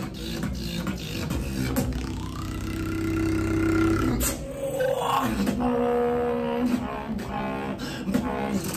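Beatboxing: held, buzzing vocal bass tones with a higher tone rising over them, sharp percussive clicks, and a fast wobbling bass sound near the end.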